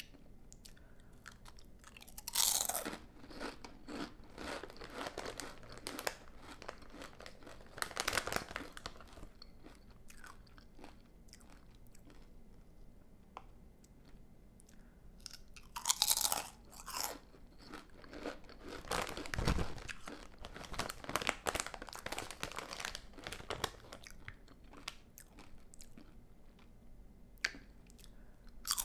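Panera Bread crunchy potato chips bitten and chewed close to the microphone. There are two rounds: a sharp crunch about two seconds in, then crackly chewing for several seconds, and again a crunch around sixteen seconds in, then more chewing.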